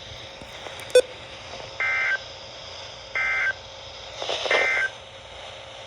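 Weather radio receiver playing an Emergency Alert System SAME header: three short, identical bursts of digital data tones about a second and a half apart, the coded header that announces a new alert. A sharp click about a second in, and a brief voice under the third burst.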